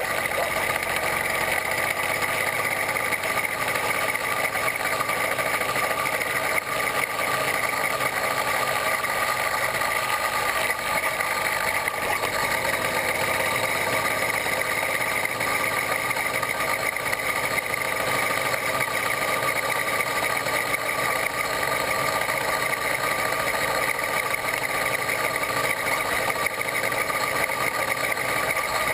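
A 66/80cc Chinese two-stroke bicycle engine kit running steadily while the bicycle cruises along the road.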